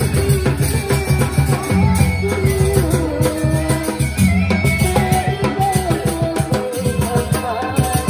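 Sasak ale-ale ensemble playing live: a dense, steady beat on drums and small clashing cymbals under a gliding melody line.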